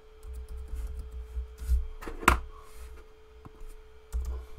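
Computer keyboard keystrokes as a word is typed, scattered clicks mixed with low thumps on the desk or microphone and one sharper knock a little over two seconds in. A faint steady hum runs underneath.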